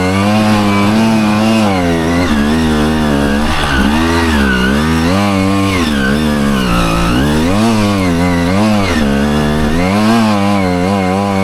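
Dirt bike engine revving under throttle, its pitch rising and falling again and again, about once a second.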